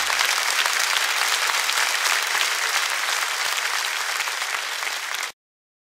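Audience applauding, a dense, even clapping that cuts off suddenly about five seconds in.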